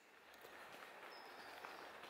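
Faint footsteps walking over a wooden boardwalk strewn with dry leaves, a few soft steps over a light outdoor hiss.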